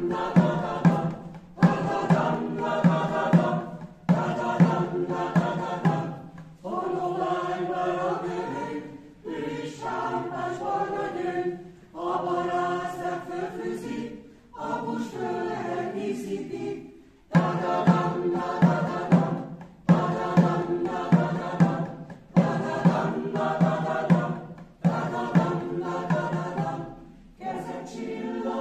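Mixed choir singing a cappella in phrases of a couple of seconds. Sharp regular accents mark the louder opening and closing passages, and the middle passage is softer without them.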